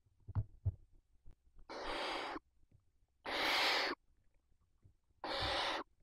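Barn owls hissing: three drawn-out hisses, each about half a second long, with a couple of soft knocks from movement on the nest floor just before them.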